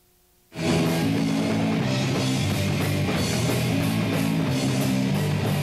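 Punk rock band playing with distorted electric guitars and drums, the music cutting in abruptly about half a second in and running at full tilt.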